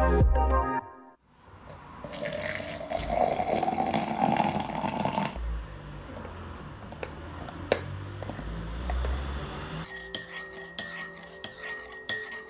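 Intro music ends, then coffee is poured from a French press into a mug, its pitch rising as the mug fills. A few light clicks follow, and near the end a teaspoon stirs and clinks repeatedly against the mug.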